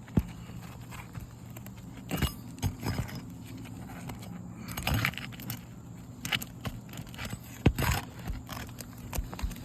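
Irregular scraping, crackling and sharp clicks and knocks of hands and a tool working an asphalt shingle loose on a roof, over a steady low hum. The loudest knocks come just after the start and about three-quarters of the way through.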